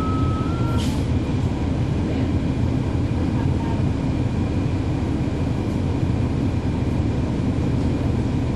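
Cabin sound of a NABI 416.15 transit bus with a Cummins ISL9 diesel and ZF Ecolife automatic transmission running: a steady low engine and drivetrain rumble. Just under a second in, a two-note electronic beeping stops and a short hiss of air sounds.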